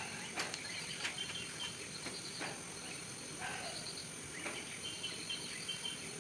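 Outdoor ambience of insects chirping in short pulsed trills, with bird calls and a few faint clicks over a steady background hiss.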